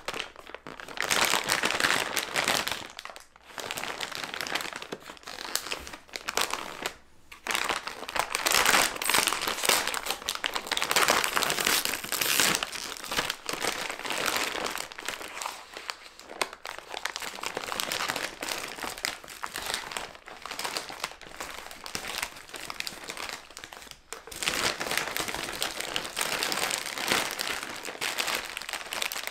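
Crinkling and rustling of plastic food packaging being handled: a large foil-lined plastic bag is opened and the plastic-wrapped packs and sachets inside are pulled out, with brief pauses about 3, 7 and 24 seconds in.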